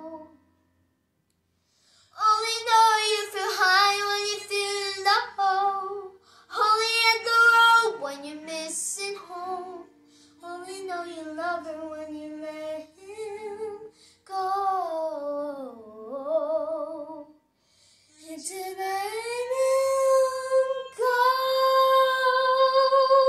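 A young girl singing unaccompanied in slow phrases with short silent gaps between them, ending on a long held note with vibrato.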